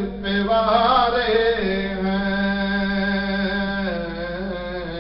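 A man chanting a devotional recitation in long, wavering held notes, over a steady low hum. The voice grows gradually quieter near the end.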